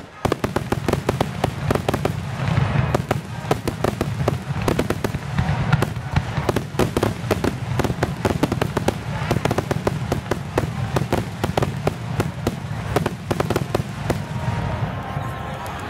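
Aerial fireworks display: shells bursting in a rapid, unbroken string of bangs and crackles, many reports a second, over a low rumble.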